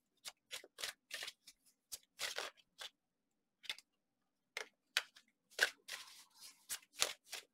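A deck of tarot cards being shuffled by hand: a string of short, crisp card snaps and slaps, with a pause near the middle.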